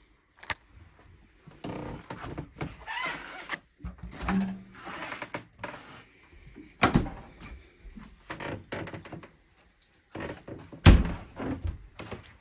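Clicks and knocks of doors being handled in a small room, including a small refrigerator door being opened, with the loudest a single sharp thump near the end.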